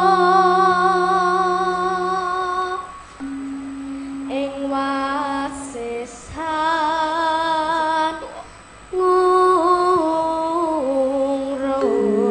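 A boy singing a Javanese tembang solo into a microphone: long held notes with vibrato that slide between pitches, in several phrases with short breaks between them, over low steady held notes.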